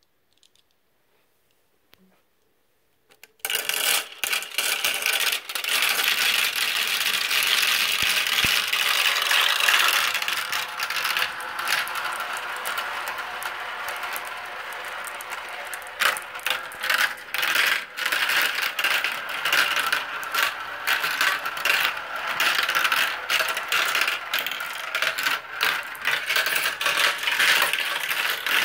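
A handful of glass marbles rattling and clicking down a plastic marble run and spinning round its funnel bowls. After a few seconds of near silence, a dense clatter of many overlapping clicks starts suddenly.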